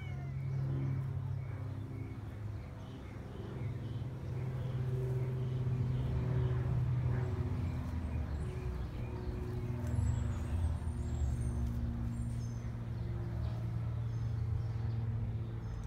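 Steady low droning hum of an engine running nearby, with a few faint high bird chirps about ten seconds in.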